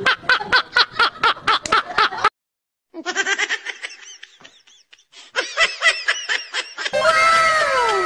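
A man laughing hard in quick rhythmic bursts, cut off abruptly about two seconds in. After a brief silence comes more laughter, and several falling tones sound near the end.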